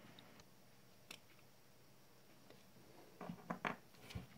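Faint clicks and taps of small plastic robot-arm parts and screws being handled and set down on a wooden board: a single click about a second in, then a short cluster of soft taps near the end.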